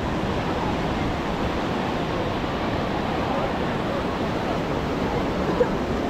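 Steady wash of ocean surf on a beach, with faint voices of people around and a brief click near the end.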